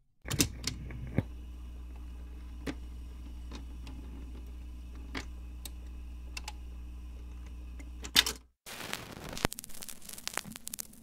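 Record-player stylus riding the run-out groove at the end of an LP side: a steady low hum with soft clicks as the record turns. About eight seconds in, a loud clack from the turntable's automatic shut-off, then after a brief gap the stylus is set down on the next side, with surface crackle and hiss.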